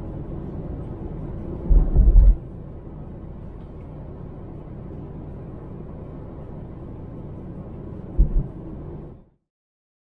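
Car cabin road noise while driving: a steady low rumble of tyres and engine, with two short heavy low thumps, one about two seconds in and one near the end. The sound then cuts off suddenly.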